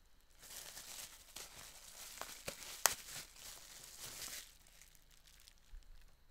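Plastic bubble wrap crinkling and rustling as a small vinyl figure is unwrapped, with a few sharp crackles about two to three seconds in; it dies down about four and a half seconds in.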